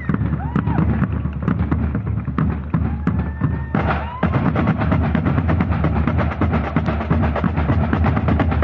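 Drum corps playing snare and bass drums together in a fast, drilled rhythm; the strikes grow denser and faster from about four seconds in.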